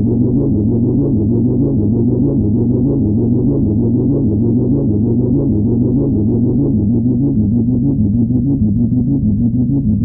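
Behringer Model 15 analog modular synthesizer playing a fast repeating sequence of bass notes through a low-pass filter held well down, so the tone is dark and muffled with nothing bright above it.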